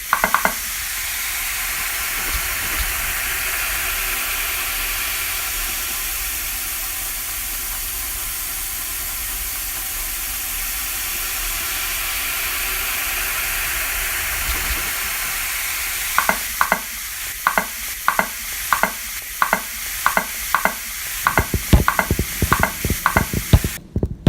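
Electronic noise piece made without real instruments. A steady sizzling hiss starts abruptly, and about sixteen seconds in a regular clicking pulse of about two clicks a second joins it. Deep thumps are added near the end.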